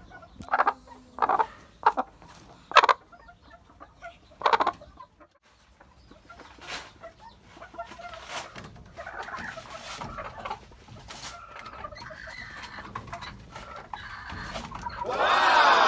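Broody hen sitting on eggs, giving a few short, separate clucks over the first five seconds, then quieter low clucking. Near the end comes one longer, louder chicken call that rises and falls in pitch.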